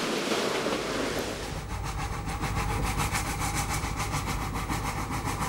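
Steam locomotives working trains: first a rushing hiss of exhaust from a Czech 475-class Mountain with Kylchap double exhaust, then, about one and a half seconds in, a small rack-railway steam locomotive hauling coaches, with a rapid even beat over a low rumble.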